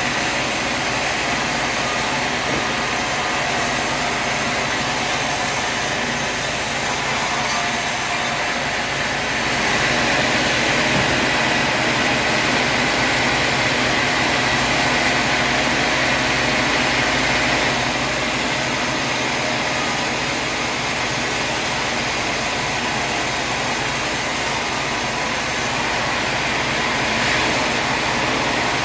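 Sawmill machinery running with a steady, loud, even noise, growing a little louder for about eight seconds from about ten seconds in.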